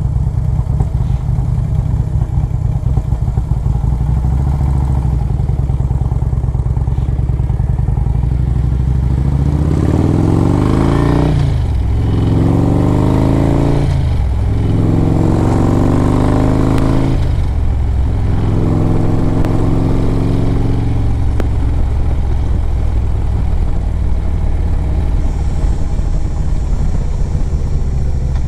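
Harley-Davidson Road Glide's Screaming Eagle 113 cubic inch V-twin engine running under way. About a third of the way in it accelerates hard, climbing in pitch through the gears with a brief drop at each of three upshifts, then settles into a steady cruise.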